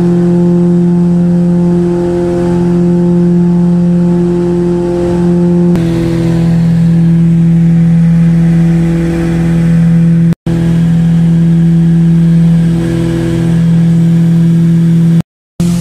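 Small propeller plane's engines and propellers droning steadily in flight, heard from inside the cabin. The tone starts to pulse slowly about six seconds in, and the sound cuts out briefly twice.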